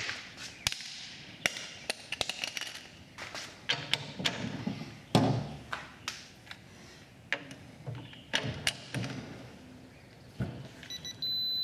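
A string of sharp metallic knocks and clicks from a half-inch click-type torque wrench being thrown and handled, the loudest knock about halfway through. Near the end a digital torque adapter gives a steady high beep.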